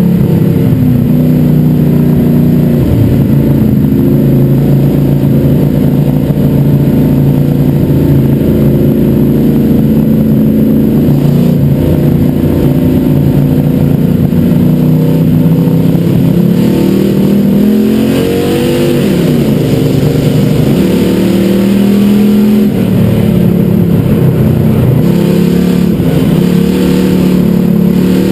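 Super Street race car's engine at racing speed, heard from inside the cockpit, very loud. The revs climb and fall again and again as the car accelerates and lifts through the laps.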